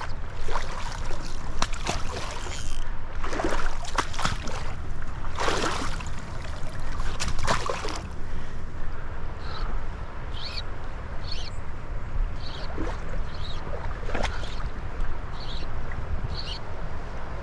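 Water splashing and sloshing at the river for the first half, over a steady low rush of flowing water and wind on the microphone. In the second half the splashing stops and a series of short high chirps comes about once or twice a second.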